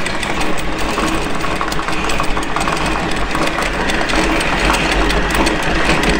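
Electric anchor windlass paying out anchor chain: the motor runs steadily while the chain links rattle continuously over the gypsy.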